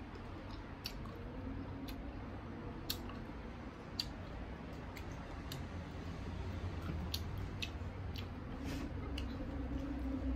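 A person chewing crisp slices of unripe green mango, with scattered sharp clicks from bites and mouth sounds.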